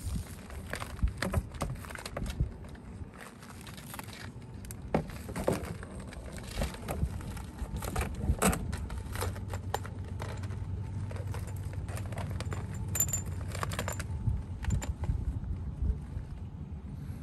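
Heated RV water hose being handled and laid out: scattered clicks, knocks and rustles of the hose and its fittings, with a low steady hum in the middle.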